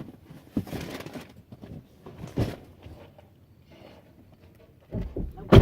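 Handling noises: a few scattered knocks and clatters, with the loudest sharp knock near the end.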